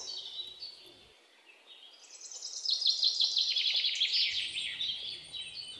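Birds chirping: a quick run of high chirps starting about two seconds in, thinning out toward the end.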